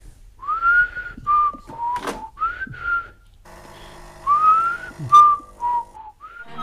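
A person whistling a short melody in phrases that slide up and then hold, with a sharp click about two seconds in and a louder one about five seconds in.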